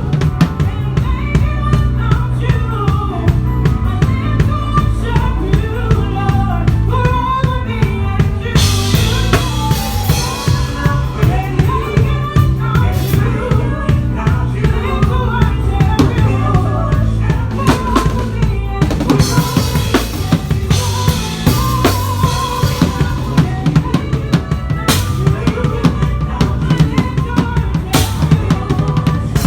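Live drum kit played with a band: fast kick, snare and rimshot strokes over bass and other pitched instruments, with cymbal washes about nine and nineteen seconds in.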